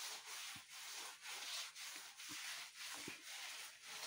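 A hand smearing wet mud plaster across an earthen wall in repeated rubbing strokes, about two a second.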